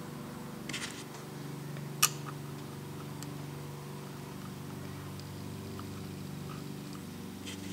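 Light clicks and taps of a sheet-metal gear shield being handled and pressed onto a cast-iron lathe apron, with one sharper click about two seconds in. A steady low hum runs underneath.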